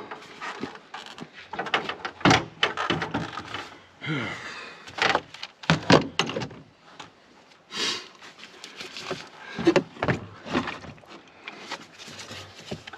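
Irregular clunks, clicks and scraping as a heavy truck battery and its cables are worked into place by hand.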